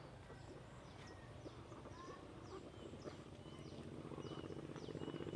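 Birds calling repeatedly with short, high chirps that sweep downward. From about three and a half seconds in, a low, rapidly pulsing sound grows louder underneath them.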